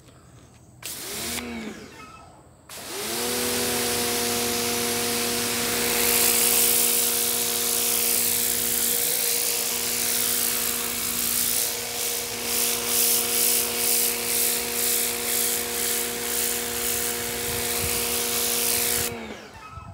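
Sun Joe SPX2688-MAX electric pressure washer spraying concrete: a short blast about a second in, then from about three seconds the pump motor comes up to speed and runs with a steady hum under the hiss of the water jet on the slab. It stops just before the end.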